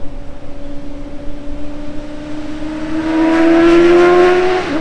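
Suzuki GSX-S750's inline-four engine with a Yoshimura AT2 slip-on exhaust running at steady revs. The pitch creeps up and it grows louder over the last couple of seconds, then the pitch and level drop just before the end.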